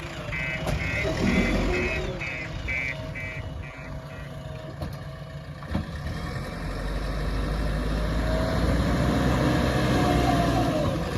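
JCB 3DX backhoe loader's diesel engine running and growing louder in the second half. For the first few seconds a reversing alarm gives about eight short, evenly spaced high beeps, roughly two a second.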